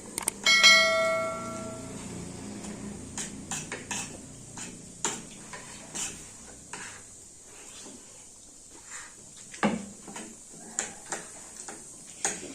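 A spoon strikes a metal bowl about half a second in, and the bowl rings on for over a second. Spoons then clink now and then against the bowls as rice pudding is eaten.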